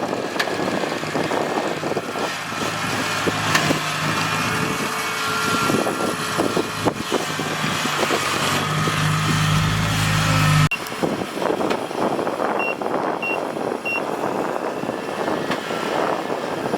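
Kubota DC-70G PRO rice combine harvester running: a steady diesel engine hum under dense mechanical clatter. The sound cuts off abruptly about two-thirds through and resumes, followed by several short high beeps like a reversing alarm.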